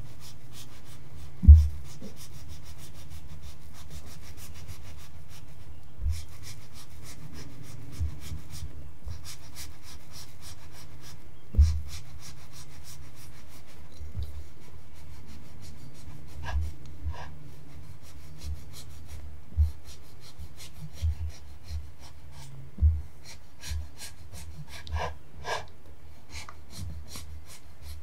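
A long knife sawing back and forth through a baked carrot cake, a soft crumbly rasp from the crust and crumb, with a few short low thumps.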